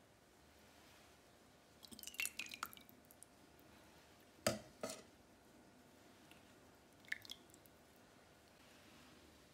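Metal ladle serving thick chicken soup from a stainless steel pot into a ceramic bowl: soft wet splashes and drips with small clinks of the ladle against pot and bowl. A cluster of light clinks with a brief ring comes about two seconds in, two sharper knocks around four and a half seconds, and a few more clinks near seven seconds.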